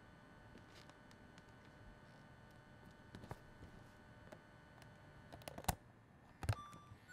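Faint steady hum, then near the end two sharp clicks from the controls of a handheld Hi-8 camcorder being worked, the second followed by a brief beep-like tone.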